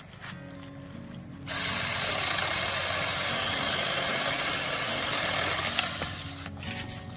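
Saker 4-inch mini cordless electric chainsaw starting about a second and a half in and running steadily as it cuts through a small tree limb for about five seconds, then letting off near the end.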